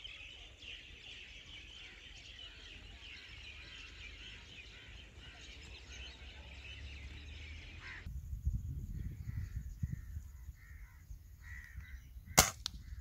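Faint birds chirping in the background. After a cut, low wind rumble and short bird calls, then near the end a single sharp crack of an air rifle shot, followed closely by a second crack.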